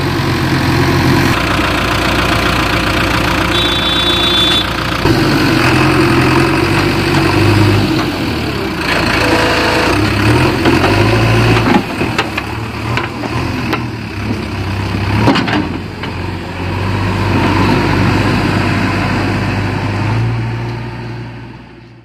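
JCB 3DX backhoe loader's diesel engine running, its revs stepping up and down as the machine works. There is a sharp knock about fifteen seconds in.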